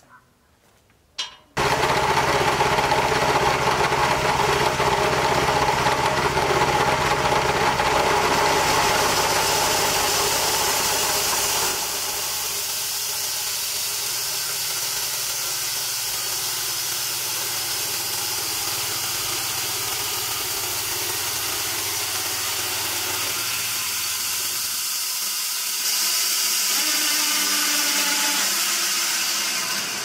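The small petrol engine of a homemade band sawmill is pull-started and catches about a second and a half in. It then runs steadily, driving the band saw. It drops to a lower, steady level around twelve seconds in and picks up again, with more hiss, near the end.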